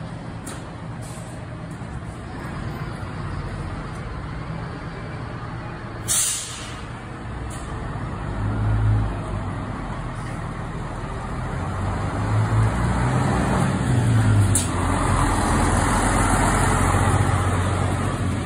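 City bus diesel engine idling, with a short sharp hiss of the air brakes releasing about six seconds in. The engine then pulls under load, getting louder as the bus moves off and drives away.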